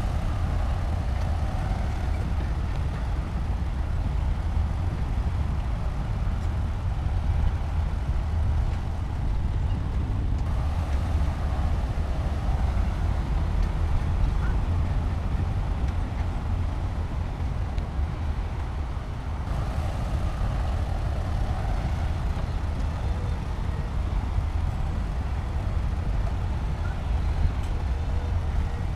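Heavy diesel engine of a bulldozer working under load, a steady low drone with small abrupt shifts in tone about ten and twenty seconds in.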